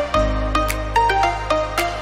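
Background electronic music: held bass notes under a quick run of melodic notes and a steady beat.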